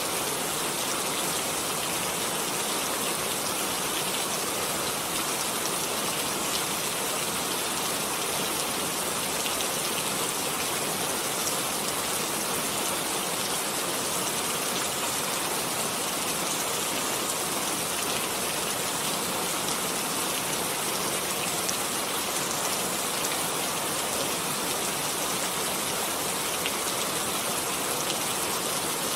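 Steady rainfall: an even hiss of rain with scattered drop ticks that holds unchanged.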